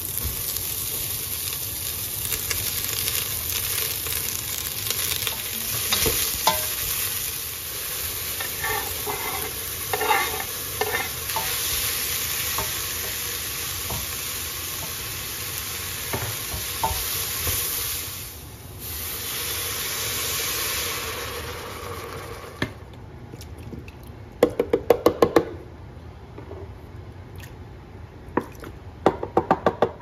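Onion and bell pepper sizzling as they fry in a pot, stirred now and then. The sizzle cuts off sharply about three-quarters of the way through. After it come two short runs of quick clicking.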